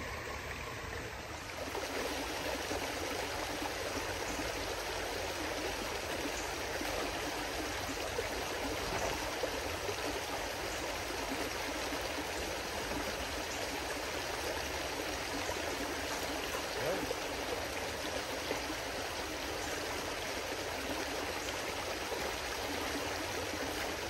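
Shallow creek water running steadily over rocks, a constant rushing babble.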